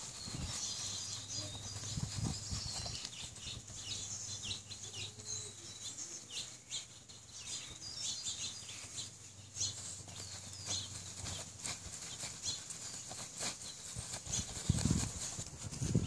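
Faint outdoor ambience: small birds chirping in short calls, over a low steady hum, with a few soft knocks.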